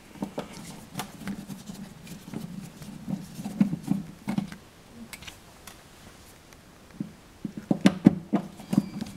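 Flat-head screwdriver backing out wall-plate screws: irregular small scraping and clicking of the blade turning in the screw heads and the hand handling the screw, with a denser run of louder clicks near the end.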